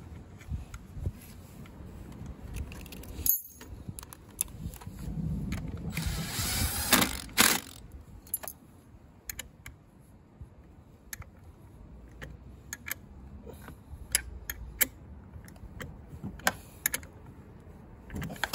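Scattered metallic clicks and clinks from hand work on a Honda Today scooter's kick-start lever and its bolt, with the engine off, and a louder scraping rustle about six to seven seconds in.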